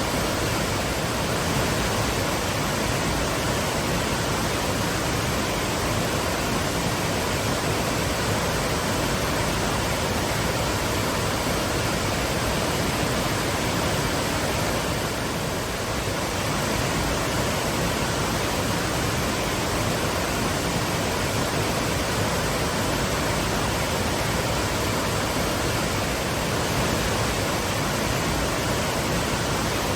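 Twin waterfalls pouring, a steady, even rush of falling water.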